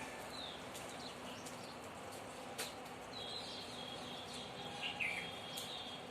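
Small birds chirping, short high calls with a few falling notes, over steady outdoor background noise. A single sharp click sounds about two and a half seconds in.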